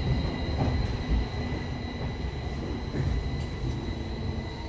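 Tokyo Metro 05 series subway train with permanent-magnet synchronous motor (PMSM) traction, heard from inside the car as it slows into a station. Wheels rumble on the rails in the tunnel, under a steady high whine from the traction drive.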